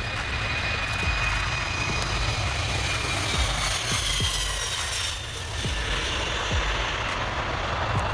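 Kawasaki C-2 military transport's twin turbofan engines at takeoff power as it rolls, lifts off and climbs away: a steady jet rushing noise with a faint high whine over it.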